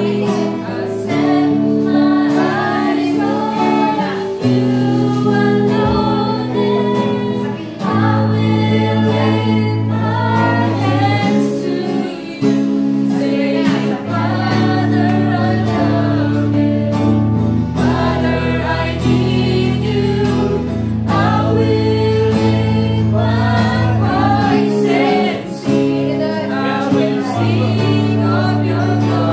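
Worship band playing and singing: several women's voices singing together over an electronic keyboard and strummed acoustic guitar, with long held low notes that change every few seconds.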